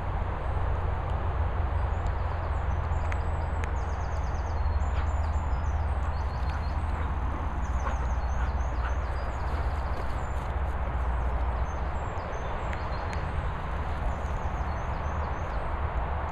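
Wind rumbling on the microphone over a steady hiss of light rain, with a small bird chirping in quick runs of high notes several times in the background.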